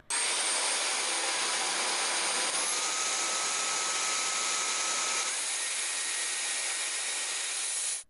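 Dyson V10 Cyclone cordless stick vacuum running through its three suction levels in turn: a steady rushing of air with a high motor whine that steps up in pitch about two and a half seconds in and again about five seconds in.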